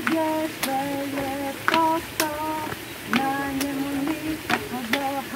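A girl and a woman singing a hand-clapping game song, held sung notes broken by sharp slaps of palm on palm, about eight claps in a loose, lively rhythm.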